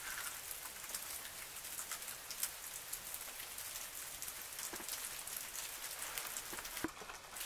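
Steady patter of falling precipitation striking surfaces: a dense hiss made of many small, sharp ticks, which briefly drops away near the end.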